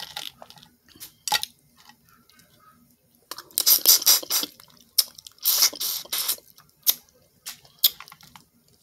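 Close, wet slurping and sucking of boiled crawfish being eaten by hand. There are two loud slurps of about a second each, with scattered sharp smacks and clicks between them.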